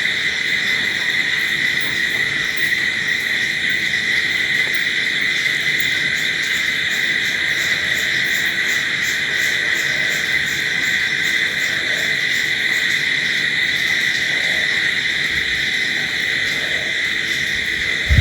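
A dense, steady night chorus of crickets chirring, with a faint fast pulsing trill higher up through the middle stretch.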